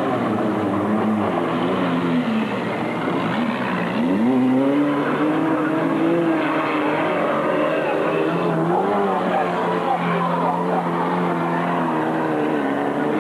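Several banger racing cars' engines running and revving together, their pitches rising and falling; one dips and then climbs sharply about four seconds in.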